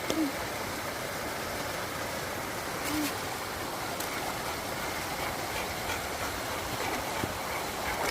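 Steady rushing of river water tumbling over a cascade, an even unbroken noise.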